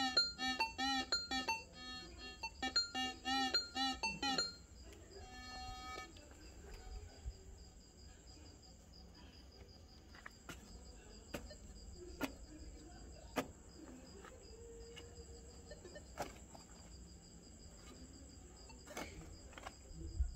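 A metal detector sounds a rapid, repeated warbling beep for about the first four seconds, then stops abruptly. After that a hand hoe chops into hard ground in scattered sharp knocks about a second apart, over a steady high whine and chirping crickets.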